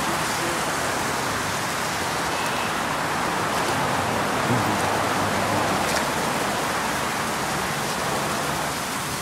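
Shallow creek water running over rocks: a steady, even rush.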